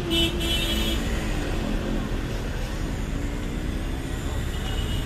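Steady motor-vehicle and traffic noise, a low running rumble, with a short pitched tone in the first half second.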